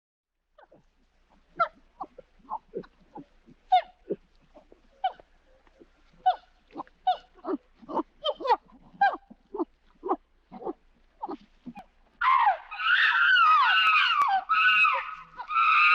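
Monkey sound effect: a run of short, sharp grunting calls, about two a second, then from about twelve seconds in a continuous loud, high-pitched screeching.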